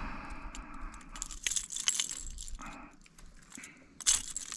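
Metal clinking and jangling of fishing pliers against a lure's hooks as a hook is worked loose from a piranha, with a short rasping noise in the first second.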